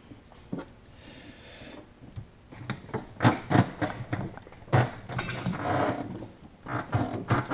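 Clunks, knocks and scraping of parts being tugged and worked loose inside a jet ski's hull. It is quiet at first, then from about two and a half seconds in comes a busy run of sharp knocks.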